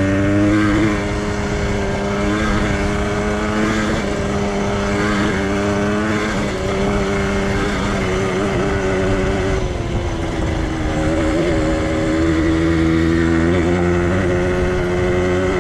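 Yamaha DT 125X's two-stroke single-cylinder engine running at fairly steady revs while the bike is ridden, its pitch wavering slightly with the throttle.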